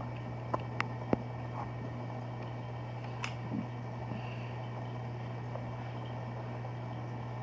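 Steady low hum of aquarium equipment, with a few sharp clicks about a second in and another near three seconds in.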